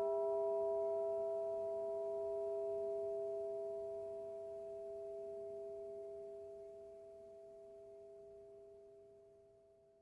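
Church bell ringing out after its last strike, with no new strike. Its higher overtones die away within the first couple of seconds, leaving a steady two-note hum that fades slowly almost to nothing by the end.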